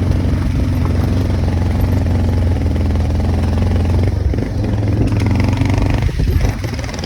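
Motorcycle engine running steadily while riding a rough dirt road, with a few knocks and jolts about six seconds in.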